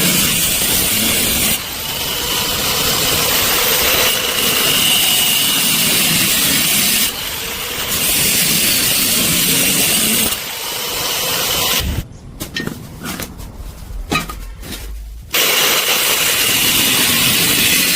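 Angle grinder cutting or grinding steel tube in several passes. It stops briefly between passes, and a quieter spell with scattered clicks falls near the end.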